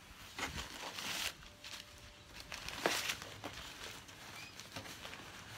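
Bubble wrap and packing material rustling and crinkling as hands rummage in a cardboard box, with a sharper tap about three seconds in.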